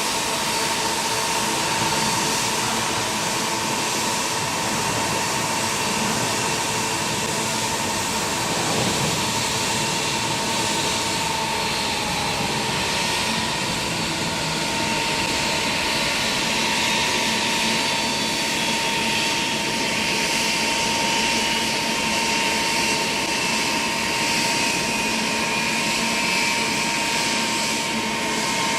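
Boeing 777-300's twin Rolls-Royce Trent 800 turbofans at takeoff thrust: a steady jet engine noise with a high whine that slowly drops in pitch through the second half as the airliner departs.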